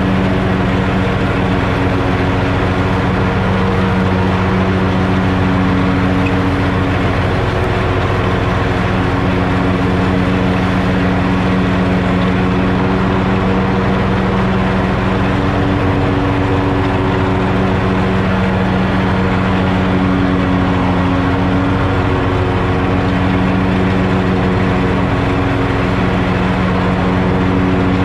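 2020 Hustler Fastrak 54-inch zero-turn mower running steadily while cutting grass: a constant engine drone whose low tones swell and fade slightly.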